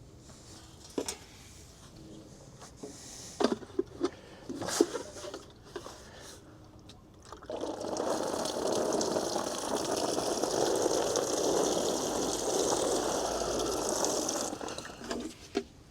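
A few handling knocks and clicks, then from about halfway in a steady run of water for some seven seconds, splashed over an inflated air mattress to find a leak by its bubbles.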